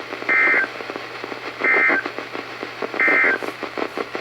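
Three short bursts of Specific Area Message Encoding (SAME) digital data tones, a warbling two-tone screech about a third of a second each and about 1.4 s apart, heard through a weather radio receiver over steady radio static. The bursts are the end-of-message code that closes an Emergency Alert System weather statement.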